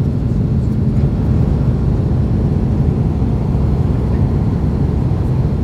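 Steady low rumble of a jet airliner's engines at takeoff power, heard from inside the cabin over the wing, as the plane lifts off and climbs.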